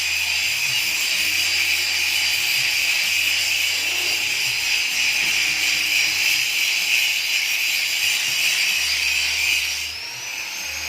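Background music: a steady jingling, hissy high layer over a low bass line that changes note every second or two.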